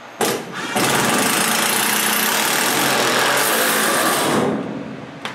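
Cordless impact driver sinking a long screw through sheet steel into the bottom of a wall: a short blip, then about three and a half seconds of steady rapid hammering that stops once the screw is snug.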